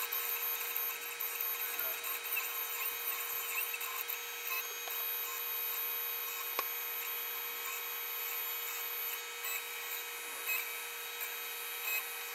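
Stepper motors of a 3040 desktop CNC router driving the gantry while a drag-knife blade cuts vinyl: a steady machine whine with a hum underneath and high tones that bend up and down as the head changes speed and direction, with light ticks and one sharp click a little past the middle.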